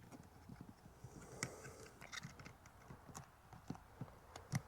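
Faint, scattered clicks and knocks of a backup camera, its wire and its rubber gasket being handled and fitted against a camper's rear wall. The sharpest knock comes near the end.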